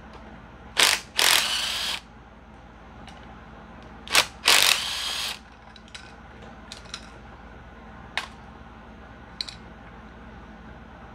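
Cordless power driver spinning bolts out of a Honda GX160 engine during teardown, in two bursts of about a second each, about a second in and about four seconds in. Afterwards come a few light clicks of metal parts being handled.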